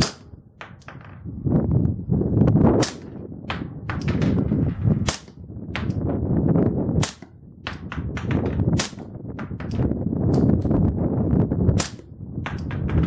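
Glock 22 .40 S&W pistol fired through an Osprey 40 suppressor with minor-power-factor loads: a slow string of sharp, muffled single shots, roughly every two seconds.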